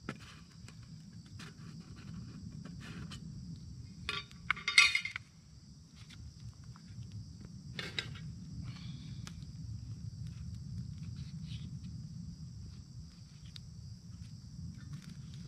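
Metal camp cookware clattering against stone as a pot is set down, a loud cluster of clinks about four to five seconds in, with a single knock near eight seconds. A steady high drone of insects runs underneath.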